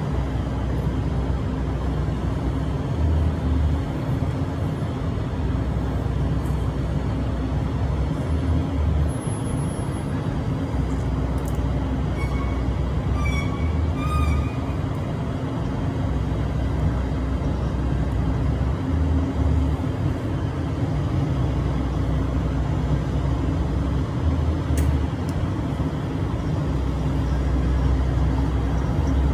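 City street traffic noise: a steady rumble with a constant low hum and uneven swells of deep low-end rumble. A brief high-pitched squeal comes about halfway through.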